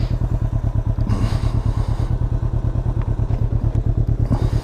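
2020 Can-Am Ryker 600's two-cylinder Rotax engine idling steadily with an even, rapid low pulse.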